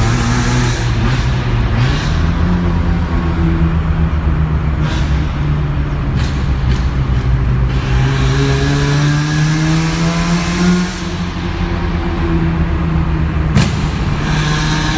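Ported Mazda 13B rotary engine on a Weber 48 carburettor with headers and a one-off exhaust, running with revs climbing and then dropping as the throttle closes. Sharp afterfire bangs crack from the exhaust: a few around the middle and a loud one near the end.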